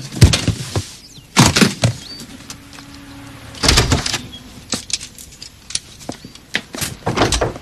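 Hurried packing: a hard suitcase lands on a bed and is flipped open, then clothes are pulled from a closet. This gives a string of thuds, clicks and fabric rustles, the loudest thud just after the start and a quick cluster near the end.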